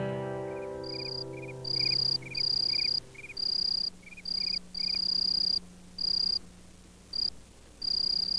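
Crickets chirping in short high trills of under a second, with a second, lower chirp in quick short notes through the first half. A guitar chord dies away over the first three seconds.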